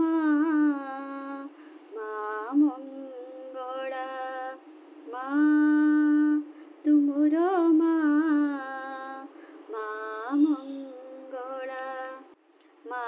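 A woman singing an Odia devotional bhajan to Maa Mangala, drawing out long held notes that bend and waver, in phrases with short breaks between them.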